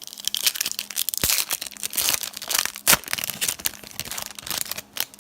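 Plastic wrapper of a trading card pack being torn open and crinkled in the hands: a dense crackle with a couple of sharper snaps, the loudest about three seconds in.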